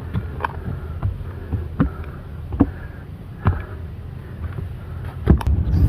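Footsteps on a hiking trail, a knock about every second at a walking pace, over a steady low rumble of wind on the microphone.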